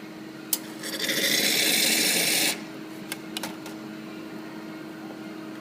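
Water running into a stainless milk jug for about a second and a half and cutting off abruptly, after a click, with a few light clicks as the jug is handled.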